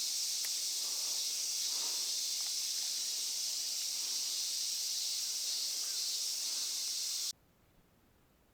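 Steady high-pitched chorus of insects buzzing without a break, which cuts off abruptly near the end.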